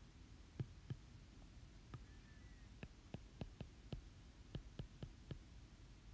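Faint, irregular taps and clicks of a stylus writing on a tablet screen, coming faster from about three seconds in.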